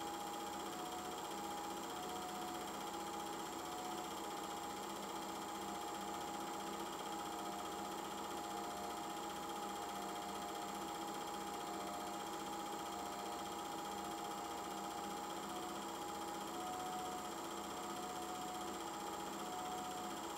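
Steady mechanical whirr and hum of a film projector running, with a faint low pulsing and a high thin tone above it.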